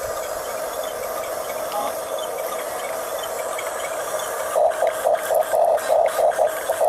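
Electric drive motors and gearbox of a Huina 1569 RC toy bulldozer whining steadily; about two-thirds of the way in the sound starts pulsing about three times a second.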